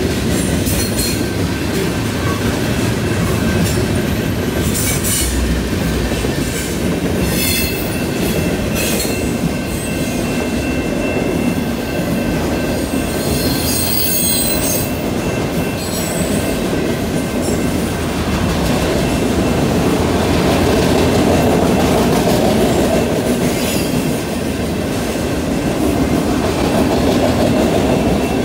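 Freight train cars rolling past: a steady rumble of steel wheels on the rails with clattering over the rail joints. There are several brief high wheel squeals along the way.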